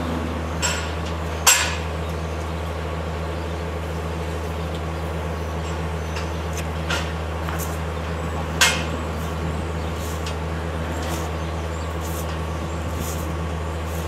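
A steady low machine hum with occasional sharp metallic clanks and clinks over it, the loudest about one and a half seconds in and again about eight and a half seconds in.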